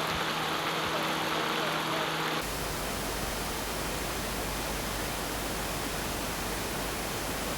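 A steady rushing noise. About two seconds in it changes abruptly to a deeper, lower rush.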